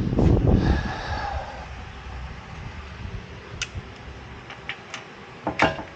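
Hand tools being handled at a car's wheel hub: a low rumble of handling noise in the first second, then a few short, sharp clicks and knocks.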